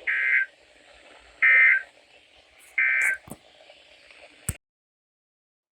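Emergency Alert System (SAME) end-of-message code: three short bursts of data tones about 1.4 seconds apart, over faint radio hiss, marking the end of the weather radio test broadcast. A sharp click follows near the end, and then the sound cuts off.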